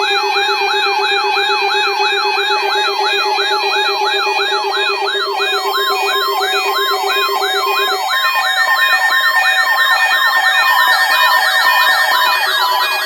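Electronic weather-radio warning alarm test signal made of several layered synthetic siren tones. A fast rising sweep repeats about three times a second over steady held tones. A low steady tone drops out about eight seconds in.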